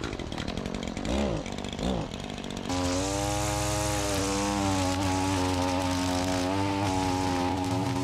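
Gas string trimmer being pull-started: two short whirring yanks of the starter cord, then its small two-stroke engine catches about three seconds in and runs steadily at high revs.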